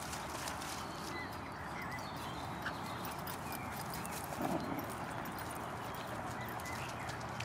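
Dogs playing on grass against steady outdoor background noise, with a few faint bird chirps in the first couple of seconds and one brief dog yip about four and a half seconds in.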